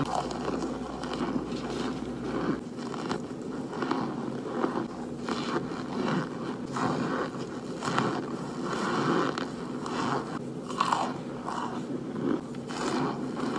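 Mouth-close biting and chewing of dry, crumbly white chunks: a run of crisp crunches as pieces are bitten off and ground between the teeth.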